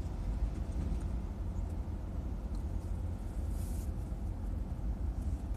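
Covered hopper cars of a passing freight train rolling by, a steady low rumble of wheels on rail, heard from inside a car.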